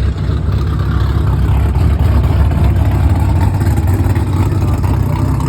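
Loud rumble of a car engine fitted with an aggressive camshaft, running steadily with an uneven, pulsing beat and no revving.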